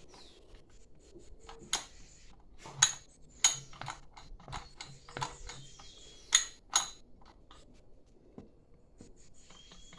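Sharp metallic clinks and knocks, about half a dozen spread over several seconds, from metal tools and parts being handled during a brush cutter engine teardown.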